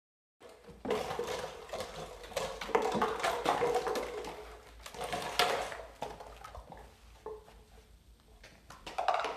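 Vizsla puppy scrambling and playing on a hardwood floor: rapid clicks of claws and knocks and clatters of a plastic bottle being knocked about. It is busiest in the first six seconds and quieter later.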